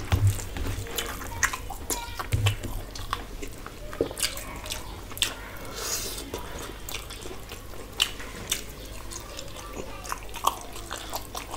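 Wet, sticky clicks and squelches of rice and curry gravy being mixed and eaten by hand, with mouth smacking and chewing.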